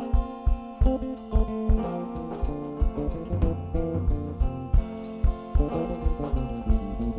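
Instrumental band music: guitar over bass guitar, with a drum kit keeping a steady beat.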